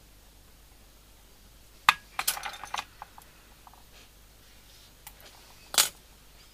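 Handling noises from fingers working thread on a hook in a fly-tying vise: a sharp click about two seconds in, a quick run of small clicks and rustles just after, and a brief louder rustle near the end.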